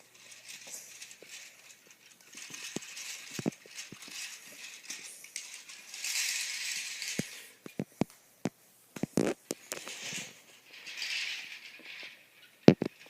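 Toy train set in use: irregular clicks, knocks and rattles, with patches of hissy rustling that come and go.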